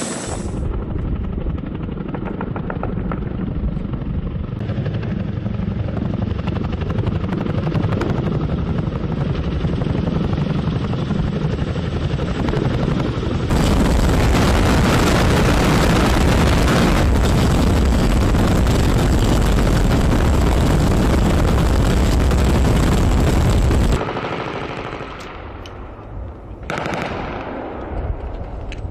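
MH-47G Chinook tandem-rotor helicopter hovering close by: a loud, steady rush of rotors and rotor wash with a fast chop. It cuts off suddenly, and near the end a few sharp gunshots follow.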